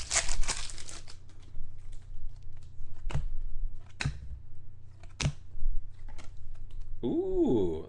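Trading cards and their packaging being handled: a crinkling rustle at the start, then soft clicks and three sharp snaps about a second apart, over a low steady hum.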